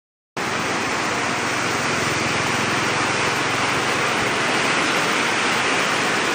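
Floodwater of a swollen river rushing: a loud, steady, unbroken noise of water. It starts abruptly after a split second of silence.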